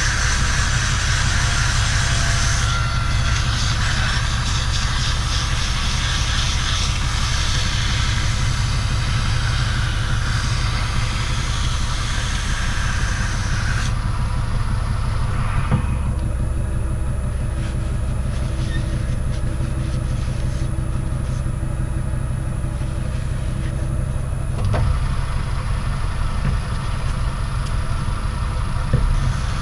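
Metal lathe running steadily with a low hum while turning an aluminium ball handle. A hiss of cutting runs for about the first half, stops abruptly near the middle, and comes back near the end.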